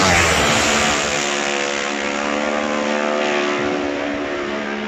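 A racing motorcycle passing flat out: its engine note drops in pitch as it goes by, then holds steady at full throttle as it heads away down the course. There is a second swell about three seconds in.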